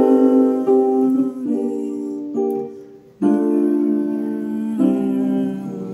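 Chords played one-handed on a Yamaha portable keyboard set to its grand piano voice, a new chord struck every second or so, each fading until the next. The level dips briefly about three seconds in before a fresh chord.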